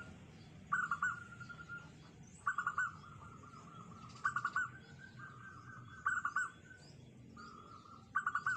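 Zebra dove (perkutut) singing its cooing song five times, about one phrase every two seconds. Each phrase is a quick run of loud staccato notes running into a longer, steady note.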